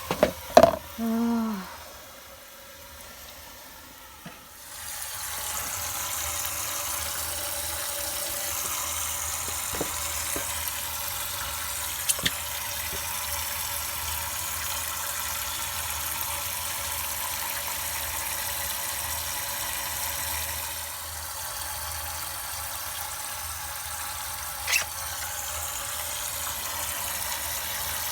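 Water hissing steadily from a burst pipe leaking under mains pressure, setting in about five seconds in, after a brief squeal near the start.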